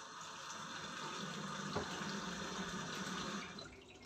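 Water running from a kitchen tap for about three and a half seconds, then turned off.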